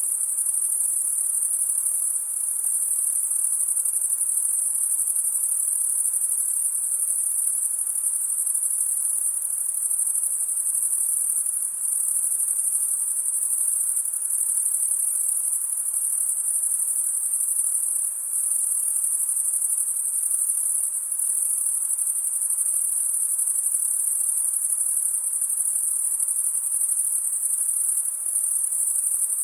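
Night chorus of crickets, a steady, dense, very high-pitched trill that carries on without a break, over a faint background hiss.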